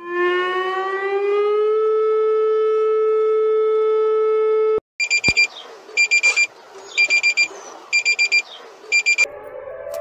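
Emergency alert alarm tones: a siren-like tone rises in pitch for about two seconds, holds steady, and cuts off suddenly about halfway through. Then rapid high electronic beeps sound in short clusters about once a second.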